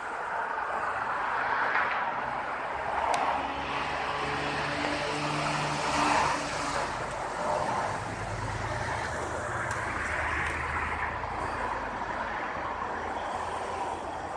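Road traffic: vehicles passing one after another, each swelling and fading, with a low engine hum through the middle seconds.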